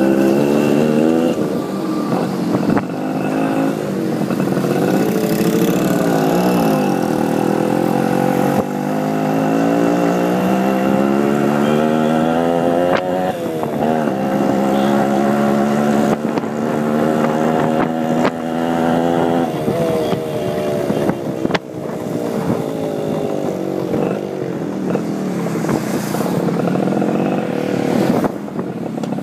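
Motorcycle engine running on the move. Its pitch climbs and then drops back, over and over, as the bike accelerates through the gears.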